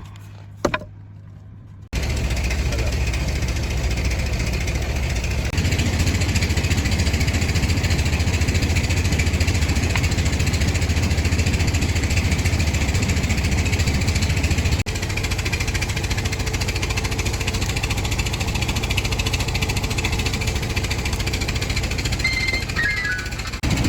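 Heavy machine running with a fast, low knocking beat. It starts abruptly about two seconds in and breaks off briefly a couple of times.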